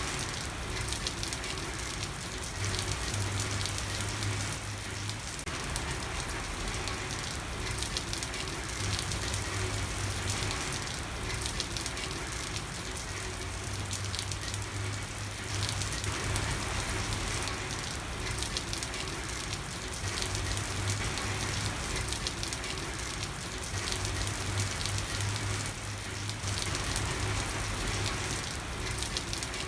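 Steady rain falling on a street, an even hiss of drops without a break. A low hum comes and goes every few seconds underneath.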